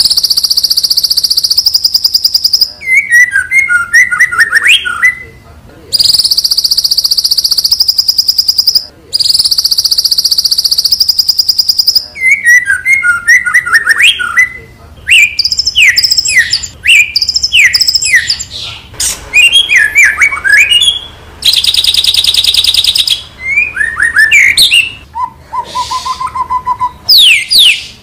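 White-rumped shama (murai batu) singing continuously and loudly. Long, fast, high trills alternate with runs of quick falling chirps and sharp downslurred whistles, with one short steady note near the end.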